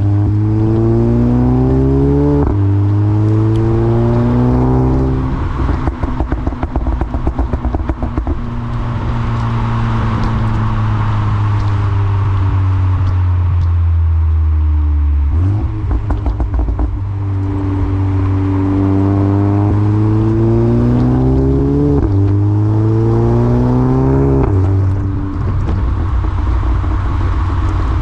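Turbocharged four-cylinder engine of a 2014 VW Golf 7 GTI Performance, breathing through a CTS Turbo exhaust, accelerating hard with rising pitch and quick upshifts. Each time the throttle lifts, a run of crackles and pops follows on the overrun, from a Stage 2 tune set up for crackles. There are two such pulls, each followed by crackling, with steadier running between them.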